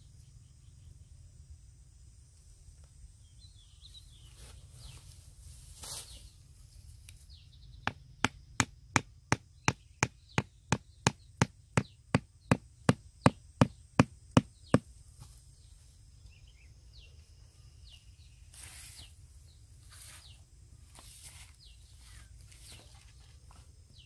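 A hammer driving a small wooden stake into the ground: about twenty sharp, even strikes, roughly three a second, starting about eight seconds in and lasting some seven seconds.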